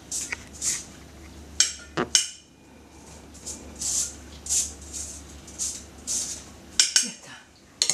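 Chopped onion being scraped out of a stainless steel strainer-bowl into a metal saucepan: repeated short metal-on-metal scrapes, about two a second, with a few sharp clinks of the strainer against the pan, the loudest around two seconds in and near the end.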